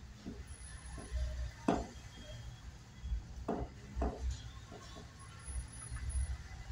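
Fingers mixing rice and egg curry on a stainless steel plate: a few short clicks and scrapes against the metal, the sharpest about two seconds in.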